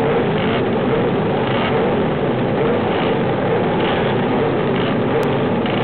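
Several classic racing motorcycle engines running loudly together on a start grid, a steady dense engine noise with no pauses.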